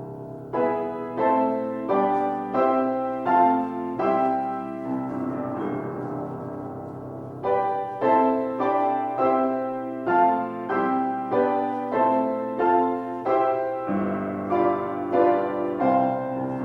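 Piano music: chords struck in a steady rhythm, about three every two seconds, over held bass notes, easing into sustained chords for a few seconds in the middle before the rhythm resumes.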